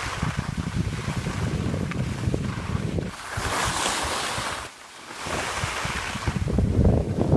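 Wind buffeting the microphone of a camera being skied downhill, with the hiss of skis sliding and carving over groomed snow. The hiss swells and fades with the turns and dips briefly about two-thirds of the way through.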